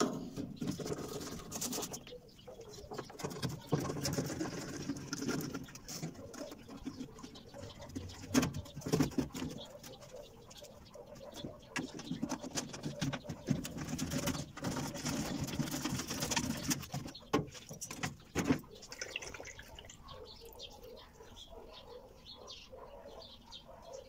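Clicks, knocks and scraping of hands working a plastic washing-machine drain pump loose from the base of a Maytag Performa washer and lifting it out.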